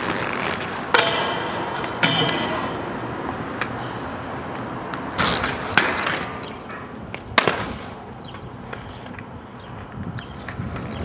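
Rollerblades knocking and scraping on a metal handrail during a failed grind attempt, with several sharp impacts and the loudest knock about seven seconds in as the skater falls. Voices are heard faintly.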